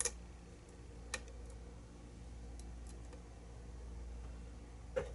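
A few sharp metallic clicks and fainter ticks from a pick and tension wrench working the pins of a pin-tumbler challenge lock, as tension is eased to reset overset pins: one click at the start, another about a second in and a louder one near the end, over a steady low hum.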